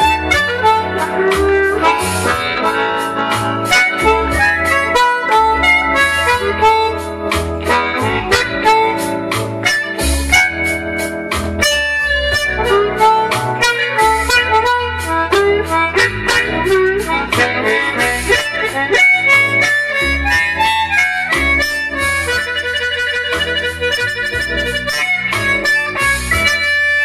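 Blues harmonica played with cupped hands, with some bent notes, over a backing track with a steady beat.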